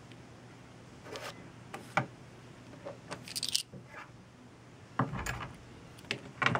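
Small metal tools and a pen being handled on a wooden desk: scattered light clicks and knocks, with a short scrape a little past halfway.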